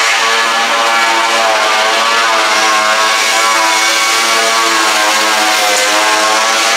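A power tool doing body work on an aircraft fuselage, running steadily and loudly with a pitched buzz over a broad hiss.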